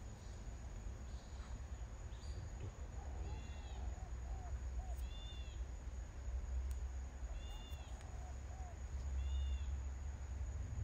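Birds calling: a short, high, arched call repeats four times, about every two seconds, and a lower, looping run of calls comes twice, all over a steady low rumble.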